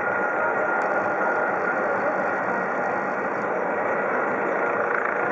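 Eurocopter EC155 B twin-turbine police helicopter flying overhead: steady rotor and engine noise with a constant high whine.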